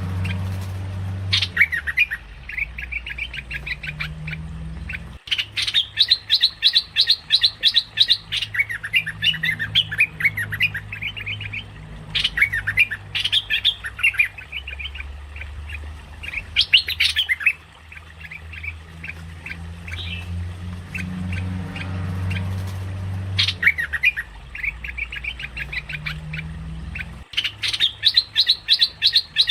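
Merbah lekir bulbul calling in rapid, chattering phrases of quick high notes, repeated over and over with short pauses: a lure call used to draw in bulbuls. A steady low hum runs underneath.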